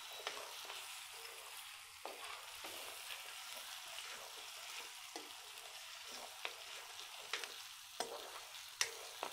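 Oil sizzling steadily in a metal kadhai as whole spices and ginger-garlic paste fry. A ladle stirring through them scrapes and clicks against the pan now and then, with the sharpest click near the end.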